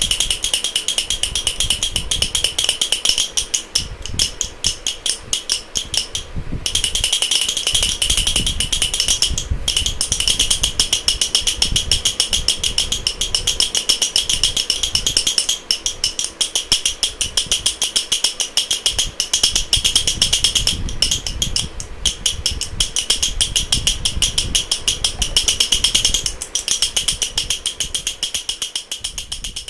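Wooden tiktik baby rattle (jhunjhuna) shaken continuously, giving a rapid, dense clicking with a few short breaks.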